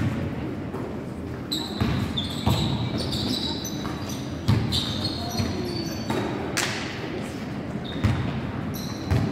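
A basketball being dribbled and bounced on a hardwood gym floor, a thud every second or so, with short high squeaks from players' sneakers and players' voices, all echoing in the hall.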